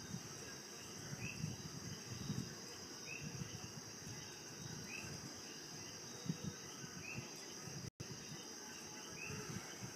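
Night insects trilling steadily and high, with a short chirp repeating about every two seconds, over a low uneven rumble; the sound drops out for an instant about eight seconds in.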